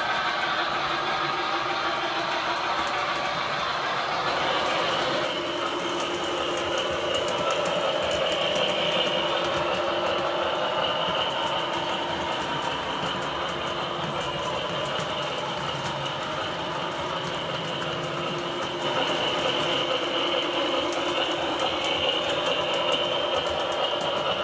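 O scale model freight train running past on the layout track: a steady rolling rumble of metal wheels on rail with a mechanical whine. The sound shifts about five seconds in, and a higher whine comes in.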